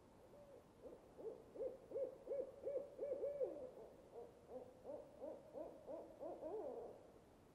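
An owl hooting in a quick run of short hoots, about three a second, starting about a second in and stopping near the end.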